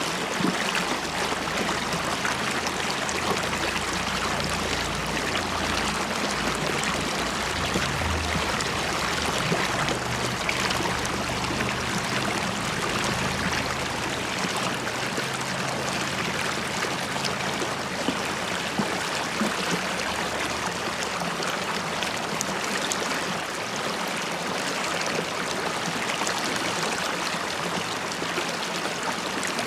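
River stream flowing steadily over stones, a dense bubbling and trickling rush.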